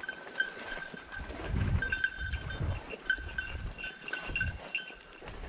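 A hunting dog's collar bell ringing with an uneven jingle as the dog moves through the cover, its clear tone restruck every fraction of a second. Low rustling and thumps of movement run underneath.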